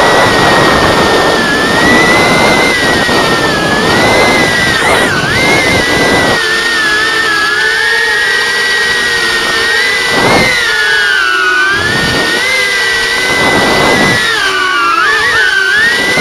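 Micro FPV drone's motors and propellers whining: a high tone that wavers up and down with the throttle, with surges of rushing air noise, heaviest in the first few seconds and again briefly three times in the second half.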